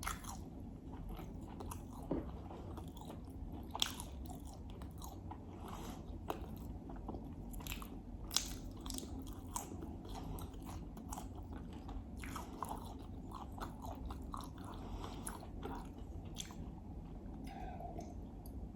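Close-miked chewing and biting: a person eating a meal of ghormeh sabzi (herb stew), dill-and-broad-bean rice and lamb, with irregular sharp clicks and wet mouth noises.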